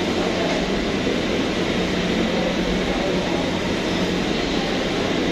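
Steady background din of a fast-food restaurant dining area: an even hum and hiss, like ventilation or air conditioning, with no distinct events.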